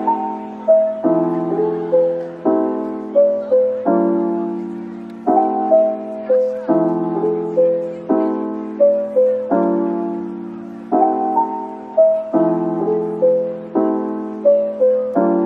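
Soft background piano music: chords struck about every second and a half, each fading away, with a few single higher notes stepping between them in a repeating pattern.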